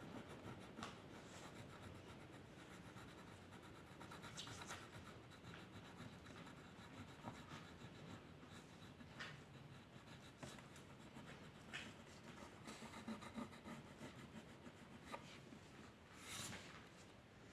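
Faint, irregular scratching strokes of a drawing tool on paper.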